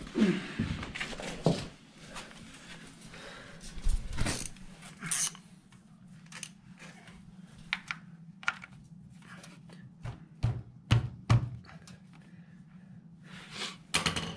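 Scattered clinks and knocks of hand tools, with a socket wrench being fitted under a motorcycle engine to undo the oil drain plug or filter. A steady low hum runs underneath.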